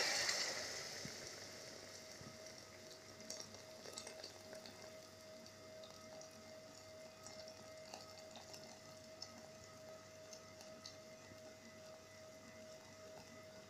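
Water poured into a hot aluminium pot of fried chicken, leeks and onion: the sizzle dies away over the first couple of seconds. What remains is a faint trickle with small scattered pops and ticks over a faint steady hum.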